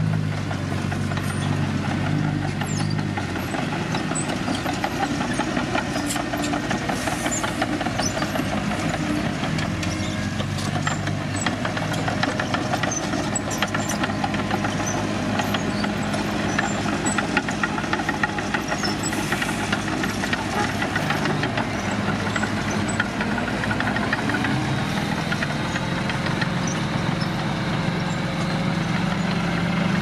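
Hino dump truck's diesel engine running steadily at low speed, its note shifting up and down several times as the truck manoeuvres, and rising near the end as the tipper bed begins to lift.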